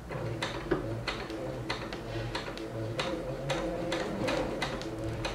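Electric sewing machine stitching a straight seam at a slow, even pace: the needle mechanism ticks a few times a second over the steady hum of the motor.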